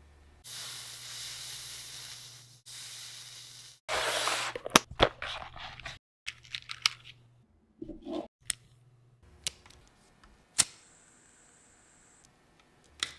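Small bench-work sounds around a push-button switch being soldered: two stretches of steady hissing early on, then sharp clicks and taps of small plastic parts. Near the end a butane lighter is struck with a click, followed by a thin, steady gas hiss for about a second and a half as it shrinks heat-shrink tubing.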